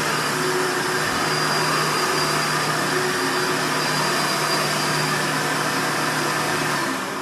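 Hoover Runabout direct-air bagged upright vacuum running loud and steady, with a high whine over its hum. It is switched off near the end, and the motor starts to wind down.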